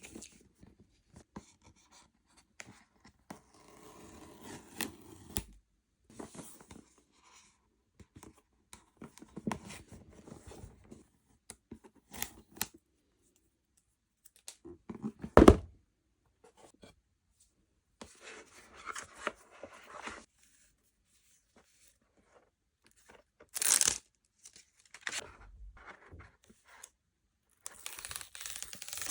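Hair dryer packaging being opened and handled by hand: irregular bursts of tearing and rustling, with one sharp knock about halfway through.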